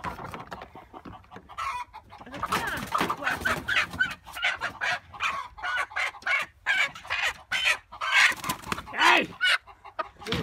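Chickens clucking and squawking, many short calls overlapping in quick succession.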